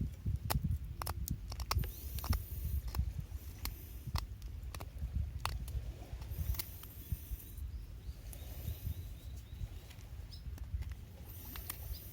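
Irregular small clicks and ticks over a low rumble, with a few brief spells of high hiss.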